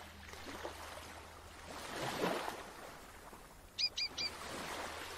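Soft wash of sea waves swelling and fading, with three quick bird chirps in a row about four seconds in.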